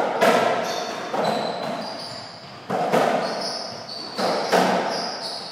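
A softraquet rally: the ball is struck by racquets and rebounds off the court, sharp hits coming about every second, several in quick pairs, each ringing out in a large hall's echo. Short high squeaks sound between the hits.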